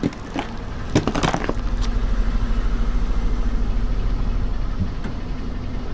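A car tyre rolling over and crushing brittle objects: a quick run of sharp cracks and crunches in the first second and a half, then the car's engine running steadily.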